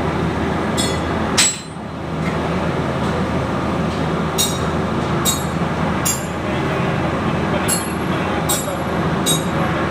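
Sharp metallic clinks of tools and metal turbocharger parts being handled, about eight at irregular intervals of roughly a second, the loudest about a second and a half in, over a steady workshop background noise.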